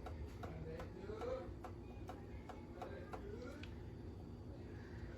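Soft, quick clicks, a few a second, that stop about three and a half seconds in, with a faint voice in the background.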